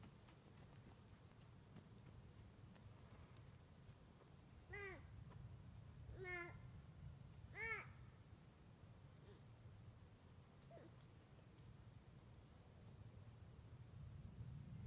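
Quiet woods with a steady high insect buzz, broken by three short, faint, rise-and-fall vocal calls from a toddler about five, six and a half, and eight seconds in.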